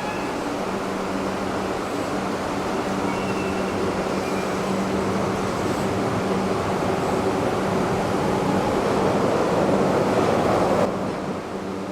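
Tokyu Oimachi Line electric train running, a rumbling noise with a steady low hum that builds gradually, then cuts off suddenly about a second before the end.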